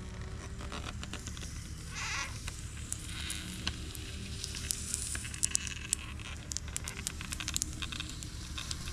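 Hot steel branding stamp burning into a sanded hickory axe handle: the wood sizzles and crackles with many small sharp pops as it scorches and smokes.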